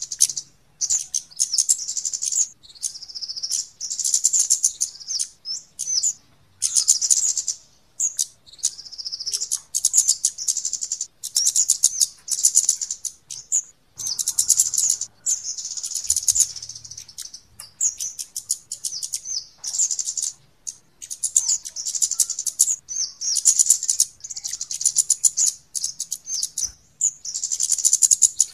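Flowerpecker calls used as a trapping lure: rapid, high-pitched ticking chips in bursts of a second or two, one after another with short gaps.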